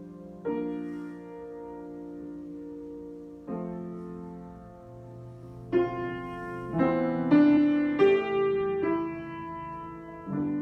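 Solo piano improvising slow, sustained chords that change every few seconds, growing louder with a quicker run of struck chords in the second half.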